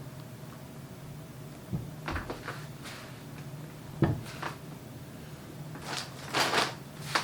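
Brake caliper parts being handled on a workbench: a few scattered knocks and clicks, a brief rustle near the end, and a steady low hum underneath.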